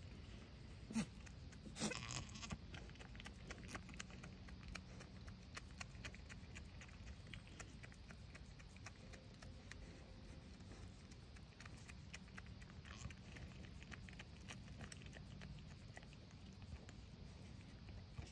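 Faint rustling and small ticking sounds, with a sharp click about a second in and a short goat call just after.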